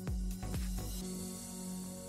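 Background electronic music: a kick-drum beat at about two thumps a second stops about a second in and gives way to held, soft chords with a hiss on top.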